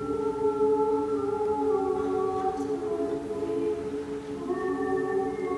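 Choir singing a soundscape-style piece: voices hold a steady low chord while higher voices sing long notes that slide slowly downward, with new high notes entering near the end.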